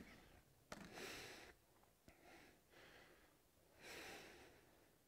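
Near silence: faint room tone with three soft breaths and a small click about a second in.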